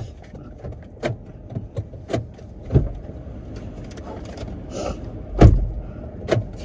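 A string of short knocks and thumps inside a car cabin over a low steady hum, the heaviest thump about five and a half seconds in.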